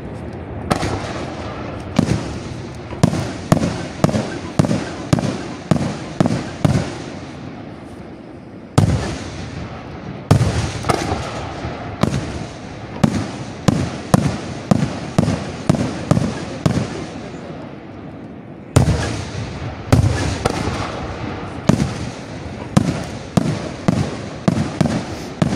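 Aerial firework shells bursting in quick succession, with sharp bangs about two a second. They come in three runs, each opened by a louder bang: near the start, about nine seconds in, and about nineteen seconds in.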